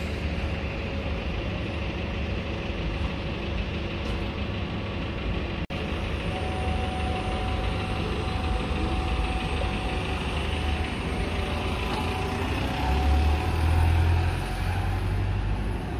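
Bus engines running, a steady low rumble with a faint steady whine in the middle, swelling louder near the end as a bus works harder. The sound breaks off for an instant about six seconds in.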